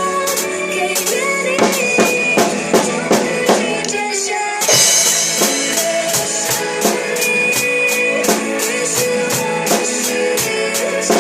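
Drum kit played along to a pop ballad backing track: a steady beat of bass-drum and snare hits with rimshots, with one louder hit about four and a half seconds in.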